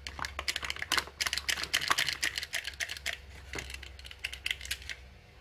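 A quick, irregular flurry of light plastic clicks and rattles from a plastic toy BB pistol and its plastic bag being handled. The clicks thin out about four seconds in.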